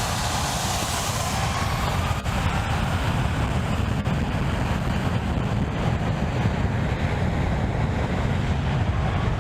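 Airplane's engine blast during takeoff: a loud, steady rush of air with heavy wind buffeting on the microphone and a deep rumble.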